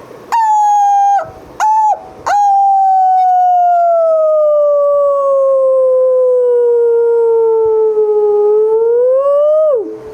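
A dog howling: a few short howls, then one long howl that slides slowly down in pitch for about seven seconds, rises briefly near the end and breaks off.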